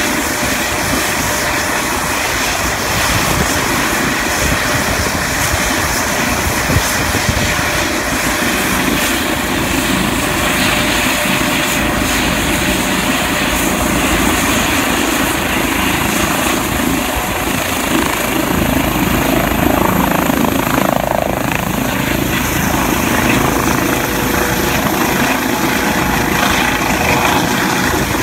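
Medical helicopter with a fenestron tail rotor running on the ground, its turbine engines and main rotor giving a loud, steady, dense noise, then lifting off into a low hover near the end.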